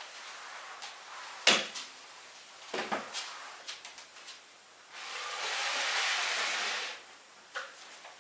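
Flat mop being worked over a floor: a sharp knock about a second and a half in, a few smaller knocks around three seconds, and about five seconds in a two-second swish of the mop pad sliding across the floor.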